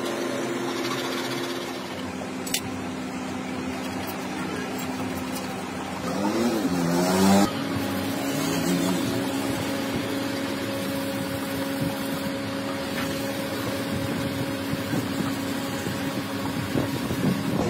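A steady mechanical hum, with an engine revving up briefly about six to seven seconds in and a single sharp click near two and a half seconds.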